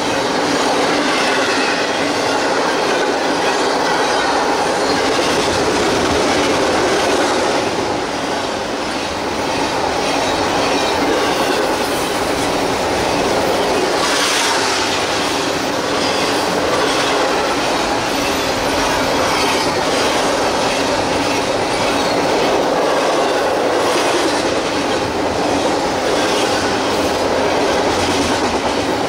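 CSX intermodal freight train rolling past close by: a steady loud rumble of cars, with the wheels clicking over rail joints and a thin high wheel squeal for a few seconds about halfway through.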